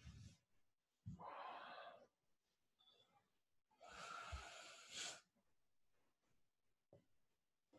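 Two faint, breathy exhales in a quiet room, one about a second in and a longer one around four seconds in, as someone settles into a lying rest pose.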